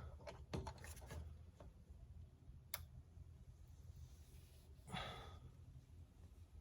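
Near silence with a few faint metal clicks, one sharper click near the middle, as a thread tap is turned by hand with a wrench in a stripped bolt hole. A short breath-like exhale comes about five seconds in.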